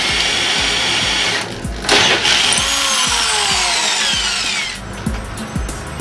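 Cordless power drill running steadily, pausing about a second and a half in, then starting again and winding down with a falling whine. Background music with a steady beat runs underneath.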